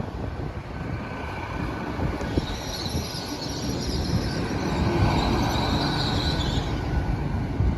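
Hitachi Class 800 multiple unit rumbling past at low speed, its wheels squealing shrilly for a few seconds in the middle.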